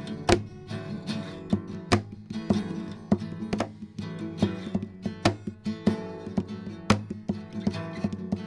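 Acoustic guitar played rhythmically, with sharp accented strums every half second or so over ringing chords.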